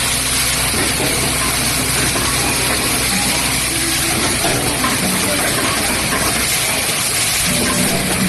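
Automatic cap assembly machine running at production speed: a steady, dense mechanical clatter and hiss with a low hum underneath.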